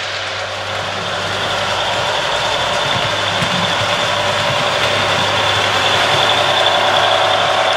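HO-scale Proto 2000 E7A model diesel locomotive running with its QSI sound decoder playing a steady diesel engine sound, mixed with the rolling of the model train on the track. It grows gradually louder as the train approaches.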